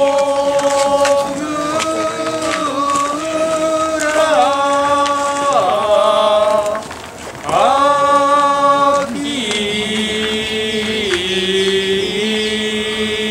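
Voices singing a drawn-out festival chant for a mikoshi procession in long held notes that scoop up at the start and step between pitches, with a short break about seven seconds in.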